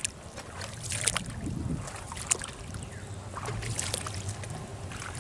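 Water sloshing and splashing as legs wade through shallow water, with a few sharper splashes, over a low rumble of wind on the microphone.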